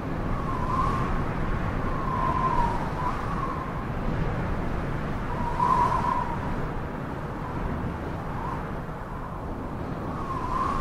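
Snowstorm wind whistling: a single wavering tone that swells and fades irregularly over a steady low rush.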